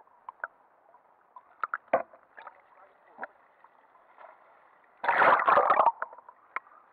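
Seawater heard through an action camera's waterproof housing dipped in a shallow rock pool: a faint, muffled underwater hiss with scattered small clicks and knocks, then, about five seconds in, a loud rush of splashing lasting about a second as the camera plunges back through the surface.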